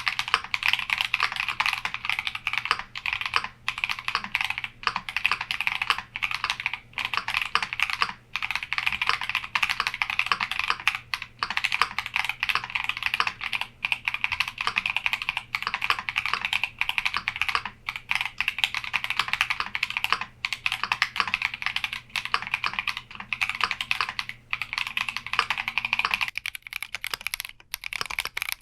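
Continuous fast typing on a Keychron Q60 mechanical keyboard, a dense stream of key clacks. The strokes thin out and get quieter near the end.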